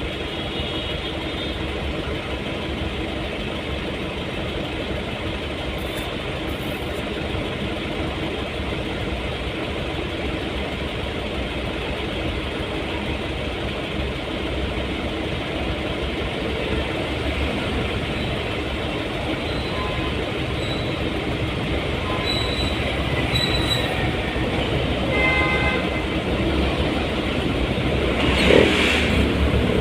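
Steady engine and road noise of a vehicle driving in city traffic, growing a little louder, with a short horn toot about three-quarters of the way in and a louder rush of noise near the end.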